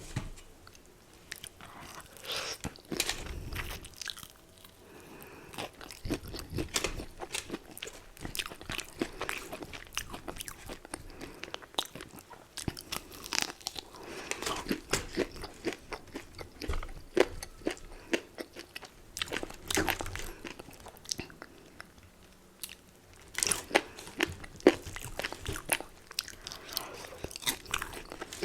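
Close-miked biting and chewing of crunchy fried chicken: irregular sharp crunches and crackles in clusters, some much louder than others.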